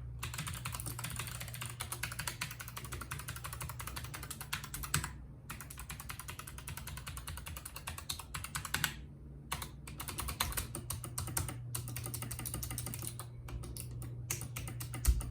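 Rapid typing on a RAKK Lam Ang Pro mechanical keyboard with Bronze switches: fast runs of key clicks broken by short pauses, with one heavier knock just before the end.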